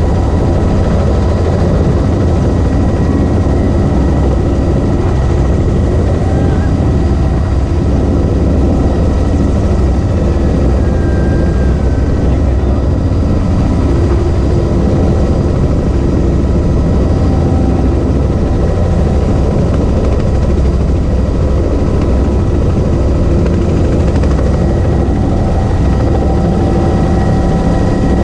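Helicopter running steadily: a loud, constant deep rumble from the rotor and engine, with several steady tones above it.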